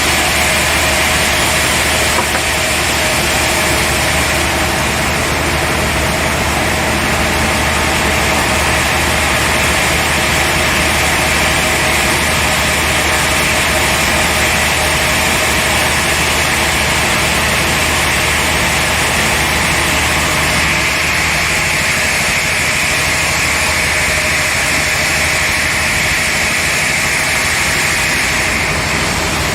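Sawmill machinery running steadily: a low motor hum under a loud, even high hiss. The hum drops away about two-thirds of the way through while the hiss carries on.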